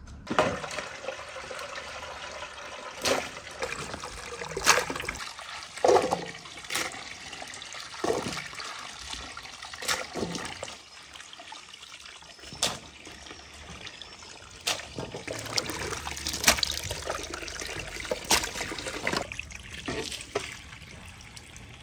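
Water running from a garden hose into a pot and being poured over diced watermelon, with hands splashing and sloshing the cubes in the water as they are washed.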